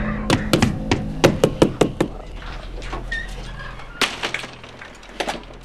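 A rapid, irregular series of sharp knocks or bangs, about eight in under two seconds, then a few more later on, over a low steady drone.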